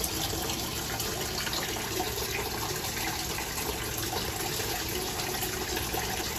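Water running steadily into a turtle tank, a continuous even rush with no breaks.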